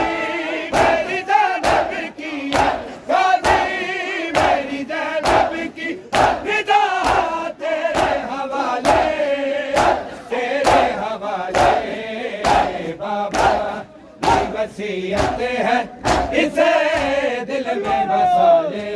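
Crowd of mourners chanting a noha together over a steady rhythm of sharp slaps: matam, hands beating on chests in time.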